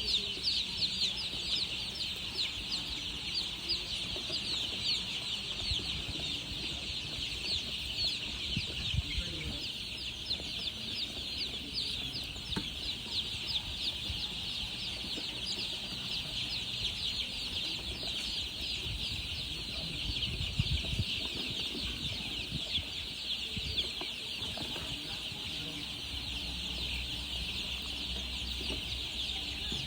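A flock of baby chicks peeping continuously, many high-pitched peeps overlapping at once.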